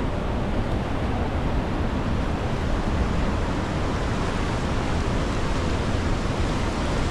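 Steady, unbroken rush of a waterfall pouring into its plunge pool, whitewater churning below.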